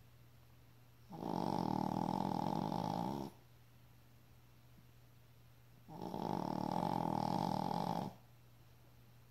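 A sleeping pet snoring in a slow, regular rhythm: two long snores, each lasting about two seconds, starting about four and a half seconds apart, with quiet pauses between them.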